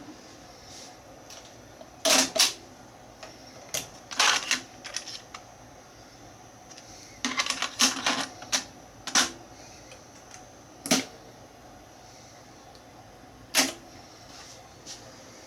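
Mechanical clicks and clunks from a Technics RS-676US stereo cassette deck's controls and transport mechanism, coming irregularly, singly and in quick little clusters.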